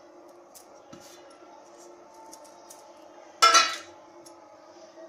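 A stainless-steel bowl clanks once against a steel thali about three and a half seconds in, ringing briefly, as the last of the flour is knocked out of it. Faint taps and a steady low hum lie beneath.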